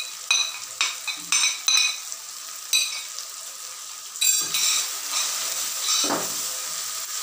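A quick run of sharp, ringing clinks as spices are knocked out of a small dish into the pot. About four seconds in, a wooden spatula starts stirring onion-tomato masala frying in oil, with a steady sizzle.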